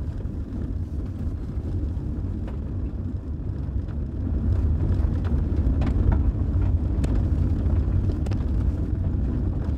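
Car driving on a gravel road, heard from inside the cabin: a steady low rumble of engine and tyres that grows a little louder about halfway through, with a few faint clicks.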